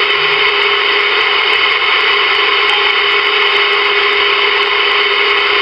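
Static and hiss from a Ranger VR-9000 11-meter multimode radio's speaker while it is tuned on sideband, with a steady low tone running through the noise and no voice coming through.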